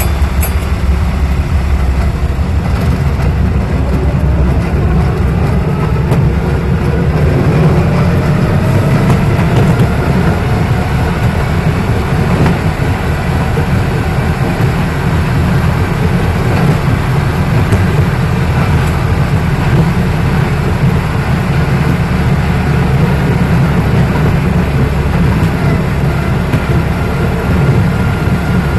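Track speeder (railroad motor car) running along the rails, heard from inside its cab: a steady, loud low engine-and-wheel drone, with a fainter whine rising in pitch over the first half.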